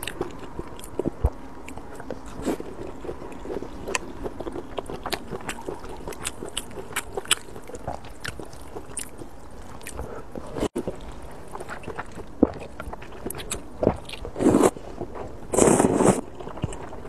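Close-up eating sounds of a person working through a bowl of rice-noodle soup: chewing with many small wet clicks and smacks. Near the end, loud noodle slurps, a short one and then a longer one.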